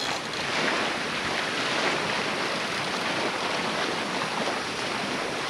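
Ocean surf washing steadily, an even rushing noise without breaks.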